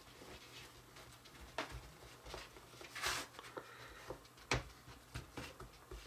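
Faint, scattered taps and a brief rustle from fingers pressing dough into a small plastic tray.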